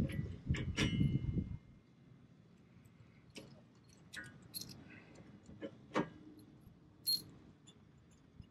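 Steel hitch parts clinking and rattling as they are handled, with short metallic ringing after the strikes. About a second and a half of dense clatter is followed by scattered light taps and clicks.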